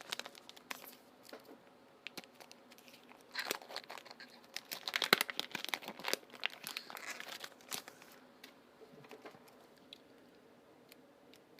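Packaging crinkling and tearing as an item is unwrapped by hand. The busiest stretch runs from about three and a half to seven and a half seconds in, and it thins to a few light clicks near the end.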